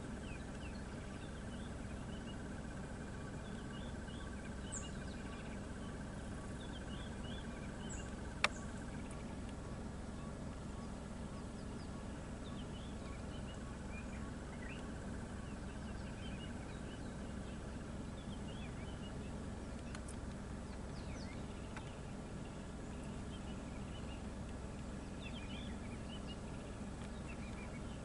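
Wild birds chirping in short scattered calls over a steady low hum, with a thin high buzz for the first ten seconds or so and one sharp click about eight seconds in.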